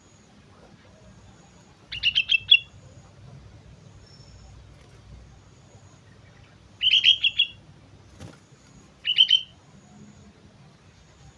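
Sooty-headed bulbul (kutilang) singing three short phrases of quick, high, bubbly notes, each under a second long and a few seconds apart.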